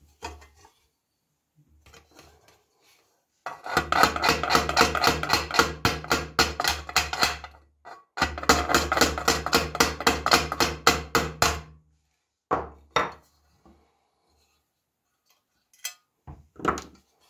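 A small hammer rapidly tapping a pin punch to drive a hinge pin out of a metal caviar dish's lid hinge. There are two long runs of quick, even taps, about five a second, with a few single taps near the end.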